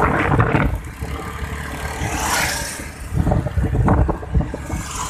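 Wind buffeting the microphone and engine and road noise from a moving motorcycle, with a brief swell of rushing noise about two seconds in.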